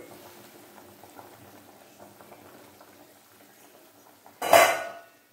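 Spiced water bubbling at a full boil in an open aluminium pressure cooker, the stage where the pot is ready for the rice. About four and a half seconds in there is one short, loud metallic clank.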